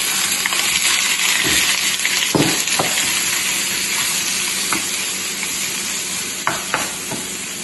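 Raw shrimp sizzling loudly in hot oil in a nonstick frying pan, with a spatula clicking and scraping against the pan a few times as it moves them around. The sizzle eases off slightly toward the end.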